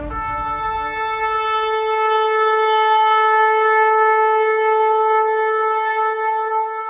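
Shofar sounding one long, steady blast that swells in loudness over the first couple of seconds and then holds.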